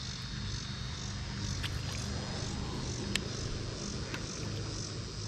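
Insects calling outdoors in a steady pulsing chorus, about two pulses a second, over a low steady hum. A single sharp click sounds about three seconds in.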